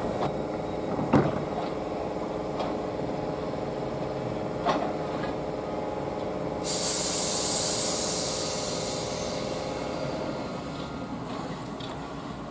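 Greater Anglia electric multiple unit standing at the platform, its equipment humming steadily with a couple of sharp knocks early on. About six and a half seconds in, the train's air system lets out a sudden loud hiss of compressed air, which fades away over about four seconds.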